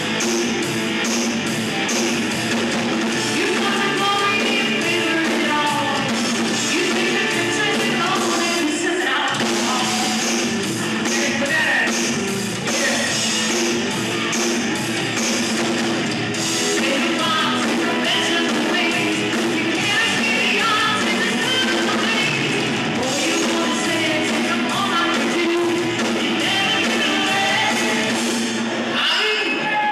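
A rock band playing live, with a lead vocal over guitars and drums.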